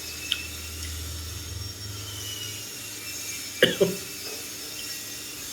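Two short, loud vocal sounds in quick succession about three and a half seconds in, each falling sharply in pitch, over a low steady hum that fades out partway through.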